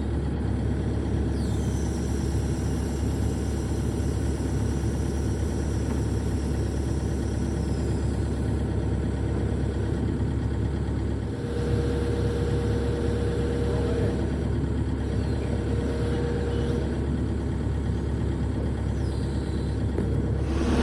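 Heavy diesel engine of the equipment running steadily. A faint whine is held for a couple of seconds, twice, in the middle.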